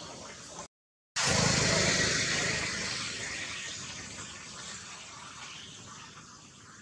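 A motor vehicle going by, loud just after a brief cut-out in the sound about a second in, then slowly fading away.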